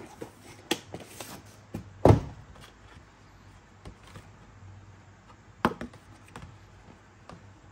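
A few sharp clicks and knocks of hard parts being handled, the loudest about two seconds in and another near six seconds.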